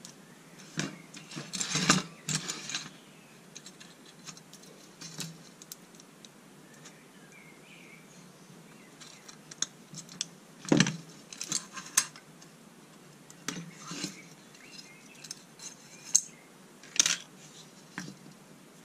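Combination pliers gripping and bending the thin wires of a metal wire cage, with irregular metallic clicks, clinks and scrapes. The busiest stretches come about two seconds in and again around the middle.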